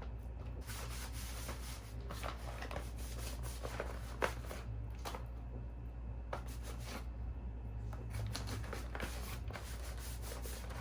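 Product boxes and packaging being wiped down with a cloth: a run of uneven rubbing and scrubbing strokes.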